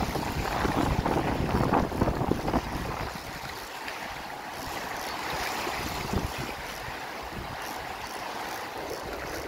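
Wind buffeting the microphone and small waves washing over shallow sea water. The wind gusts about the first three seconds, then gives way to a steady washing hiss.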